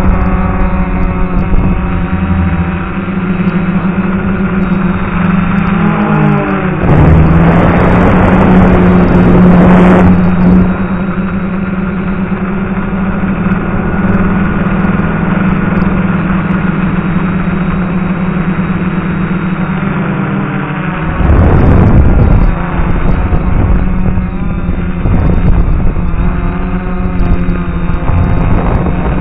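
DJI F450 quadcopter's motors and propellers running with a steady hum, the pitch dipping and rising as the throttle changes. Twice, around seven and twenty-one seconds in, a rush of wind-like noise swells over the hum for a few seconds.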